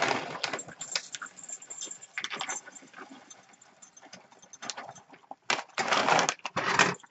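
Semi-sweet chocolate chips being poured into a small glass Pyrex container, rattling in several short bursts and then a longer, denser pour near the end.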